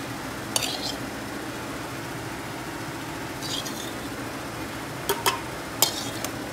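Metal ladle clinking and scraping against a kadhai and a steel pot while fried potato pieces are scooped out: a clink just after the start, a short scrape in the middle, and three quick clinks near the end, over a steady low hum.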